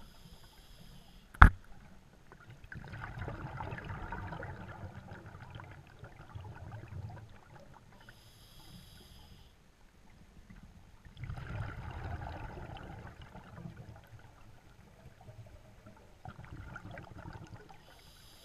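Scuba diver breathing through a regulator underwater: short hissing inhalations about every nine seconds, each followed by a few seconds of bubbling exhaled air. A single sharp click sounds about a second and a half in.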